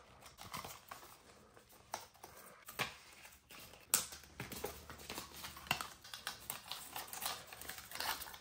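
Scattered light taps and clicks with faint rustling, from the MacBook Pro's box and its paper packaging being handled; the sharpest click comes about four seconds in.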